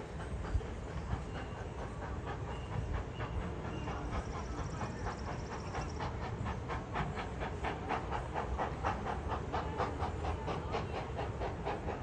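Baldwin-built narrow-gauge 4-6-0 steam locomotive (ET&WNC No. 12) working, its exhaust chuffing from the stack in a quick, even beat that grows stronger about halfway through.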